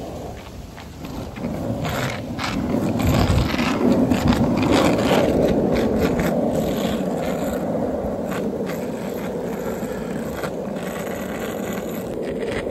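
Longboard wheels rolling over asphalt: a steady rumble that grows louder about two seconds in as the board picks up speed, with scattered clicks where the wheels cross cracks and grit.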